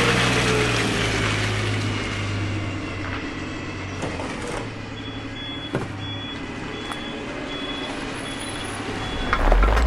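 Heavy truck engine running with a low hum that fades away over the first few seconds. From about five seconds in, a faint reversing alarm beeps evenly, a little under twice a second, and a louder low rumble comes in near the end.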